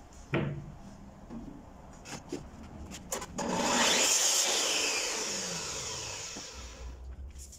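Stanley miter saw starting up about three and a half seconds in and cutting through a pine strip, then winding down with a falling whine over about three seconds. Before it, a few knocks of the wood being handled and positioned.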